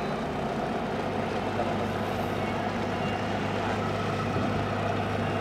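Ship's engines running with a steady low drone.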